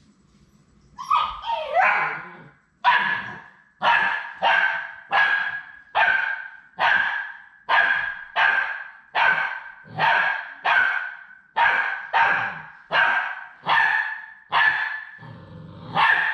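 Labrador Retriever puppy barking over and over, nearly two high-pitched barks a second, opening with a few yelps that slide in pitch.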